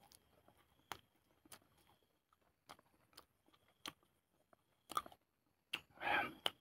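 A mouthful of raw wild leaves being chewed close to the microphone: scattered, irregular wet clicks and crunches, with a short, louder burst of rustling noise near the end.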